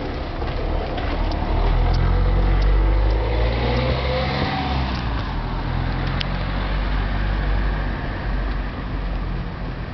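A car driving past on the street: engine and tyre rumble that swells to its loudest about two to three seconds in, shifts in pitch, then eases into a steady traffic hum.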